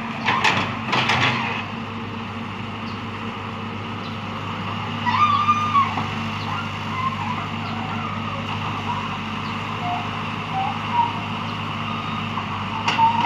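Excavator engine running steadily, with a few clicks and knocks in the first second or so and short wavering higher-pitched sounds around the middle.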